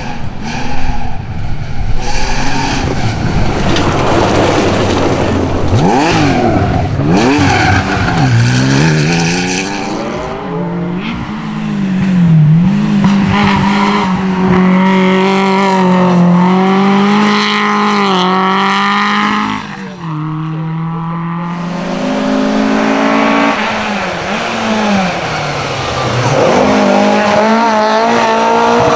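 Historic rally cars driven flat out, one after another: engines revving hard, pitch climbing and dropping back at each gear change. First an air-cooled Porsche 911 flat-six on a gravel stage, later an Alpine A110 and a Ford Escort on tarmac.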